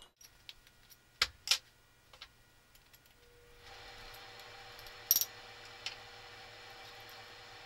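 Small metal parts clinking and clicking as they are handled and set down, a few sharp clicks in the first two seconds and two more later. A faint steady hiss comes in about three and a half seconds in.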